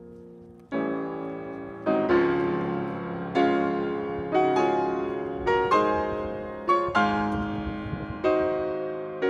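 Slow piano music: chords struck about once a second, each sharply sounded and then ringing away.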